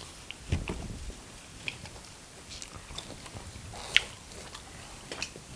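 Chewing and biting sounds of pizza being eaten close to the microphone: soft, scattered mouth clicks and smacks, with a sharper click about four seconds in.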